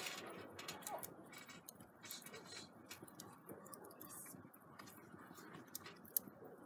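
Wood fire crackling in a brick wood-fired pizza oven: faint, irregular pops and snaps over a low hiss.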